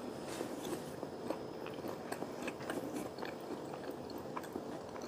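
A person chewing a mouthful of beef ball with chili sauce, heard as many small, irregular mouth clicks.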